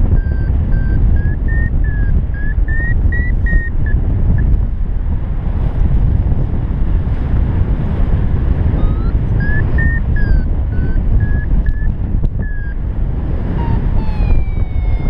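Paragliding in flight: heavy wind rush on the microphone, with a variometer beeping in short high tones that step up and down in pitch, signalling lift. The beeping stops for a few seconds partway through, and near the end a smooth falling tone comes in.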